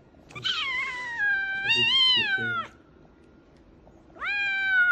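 A cat yowling while being held: one long drawn-out call that slides down in pitch, a short pause, then a second call that starts near the end.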